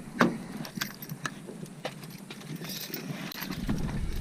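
Car keys jangling and clicking as they are handled, with a string of sharp separate clicks and knocks.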